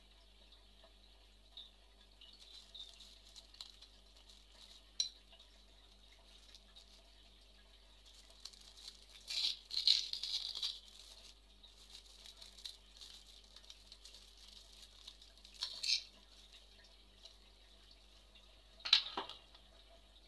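Light clinks and rattles of metal parts being handled, with a denser burst of clattering about halfway through and a sharp clack near the end.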